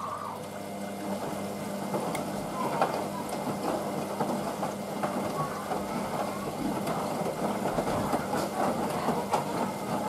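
Hoover Vision Dynamic front-loading washing machine tumbling laundry through rinse water in its final rinse: a steady sloshing of water and wet fabric over a low motor hum, with a few small clicks.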